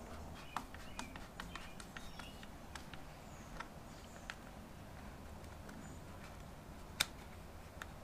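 Scattered light clicks and taps of hands and a small tool handling and fitting a plastic cover onto a Kawasaki KLR650's engine side, with one sharper click about seven seconds in.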